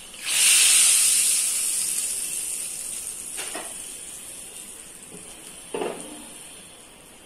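Hot ghee tadka poured onto cooked dal, hissing sharply as it hits and then fading to a soft sizzle over several seconds. Two light knocks, about three and six seconds in.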